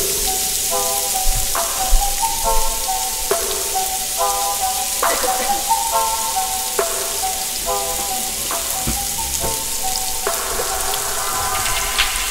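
Two seasoned beef steaks sizzling in olive oil in a nonstick frying pan: a steady hiss with a few sharp pops. Light background music with short melodic notes plays over it.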